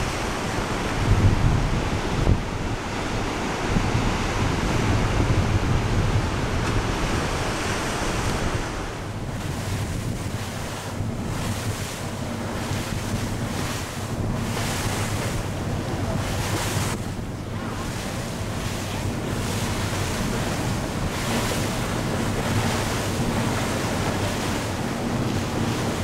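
Wind buffeting the microphone over the wash of sea waves. From about nine seconds in, a faint steady low hum runs underneath, and there are several brief gusts.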